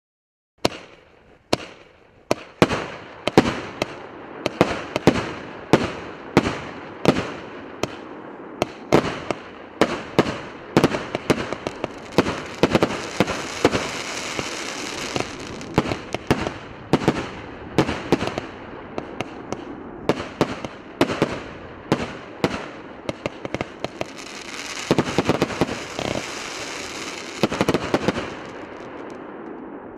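Multi-shot fireworks battery 'Гранатовый браслет' firing shot after shot, a sharp bang every half second to a second. Between the bangs the bursts crackle, and the crackling grows dense around the middle and again near the end.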